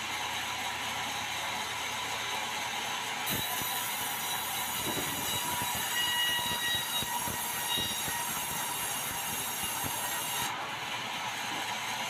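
Sawmill band saw ripping a red meranti board lengthwise. The blade's cut comes in sharply about three seconds in as a high hiss with faint squealing tones and stops about ten seconds in, leaving the saw running on its own.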